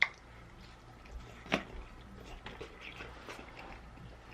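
Close-miked chewing and mouth sounds of someone eating, with a sharp click at the very start and another about a second and a half in.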